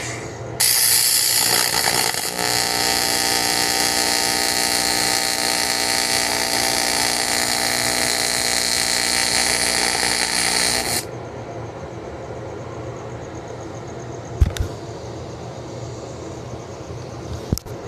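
MIG welder laying weld to build up metal: a steady crackling hiss that starts about half a second in and stops suddenly about eleven seconds in. Two short knocks follow near the end.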